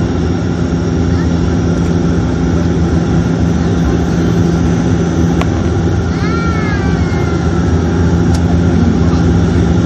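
Steady engine and airflow noise inside an airliner's cabin on the low approach to landing, with a constant low hum. A brief high-pitched sliding sound comes about six seconds in.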